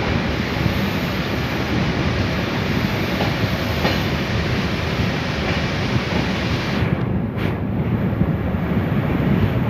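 Passenger train running on the track: a steady, dense rush of wheel-on-rail and running noise. The high hiss briefly drops away about seven seconds in.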